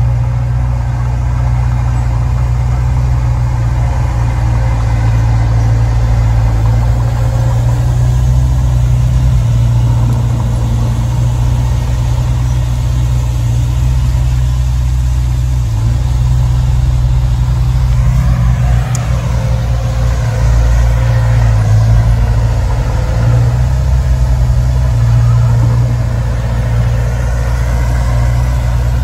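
Diesel engine of heavy earthmoving machinery running steadily with a deep rumble, its pitch shifting briefly about two-thirds of the way through.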